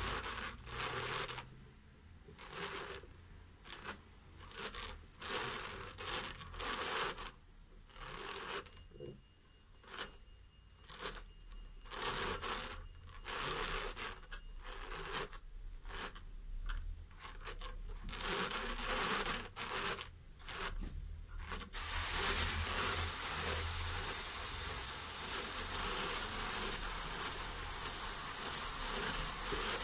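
A hand-cranked Classic Carders drum carder turning as silk is fed directly onto its big drum. The carding cloth's wire teeth give repeated short rasping, brushing strokes through the fibre. About two-thirds of the way through, this changes suddenly to a steady, continuous hiss.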